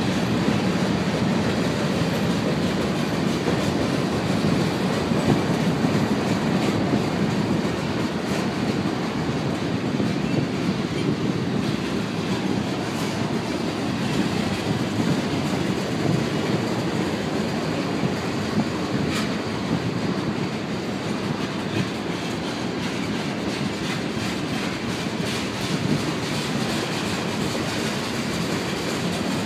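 Freight cars of a slow-moving mixed freight train rolling past: a steady rumble of steel wheels on the rails, with occasional clicks over the rail joints.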